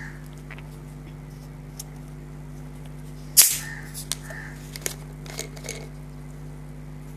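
A steady low hum with one sharp click about three and a half seconds in, followed by a few lighter clicks and taps.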